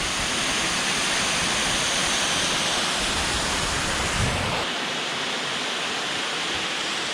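Ganoga Falls, a tall waterfall, pouring steadily, a loud, even rush of falling water heard close to its base. The sound turns slightly duller about two-thirds of the way through.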